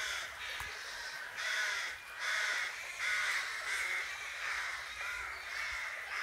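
Rooks cawing from their treetop nests: a steady run of harsh caws, one after another about every second.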